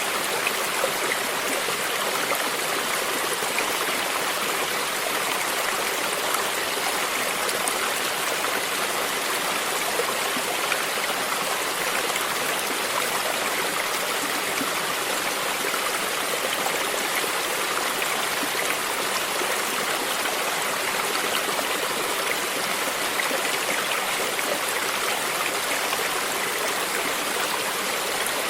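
A stream flowing steadily, water lapping and splashing over rocks, with a small waterfall adding to the even rush.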